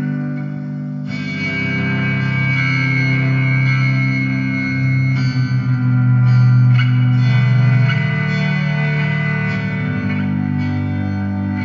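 Electric guitar played through effects, plucked notes and chords ringing out with long sustain.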